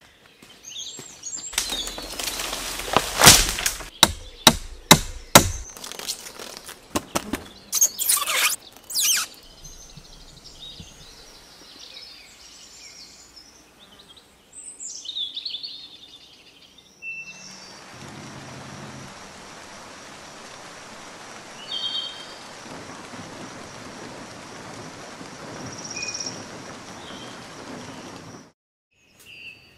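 Several loud, sharp knocks and cracks, then birds chirping, then a steady hiss lasting about ten seconds that cuts off suddenly near the end.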